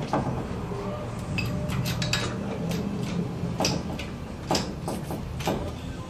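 Irregular metal clinks and knocks from a Toyota 3.0 engine as it is hoisted out of the pickup's engine bay, a few sharp taps every second or so over a steady low hum.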